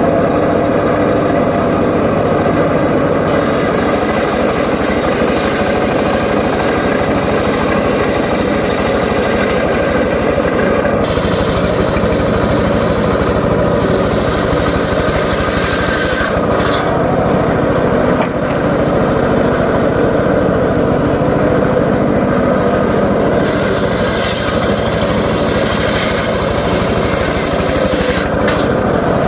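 Homemade engine-driven circular saw running steadily and cutting through timber. The sound grows harsher during two long stretches, in the first part and again near the end.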